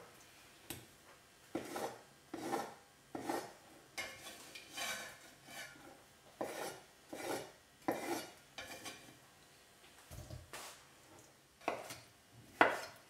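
Chef's knife slicing through a beetroot and meeting a wooden cutting board, roughly one cut a second with a short scrape on some strokes; the last few cuts near the end land as sharper, louder knocks.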